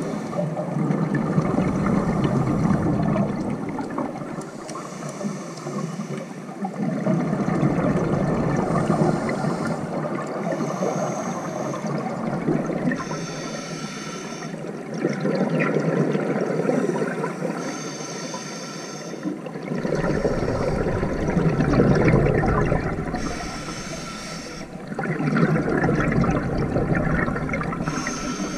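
Scuba diver breathing through a regulator underwater, heard from a camera on the diver: a rush of exhaled bubbles about every five seconds, with a short high hiss of the breath drawn in between several of them.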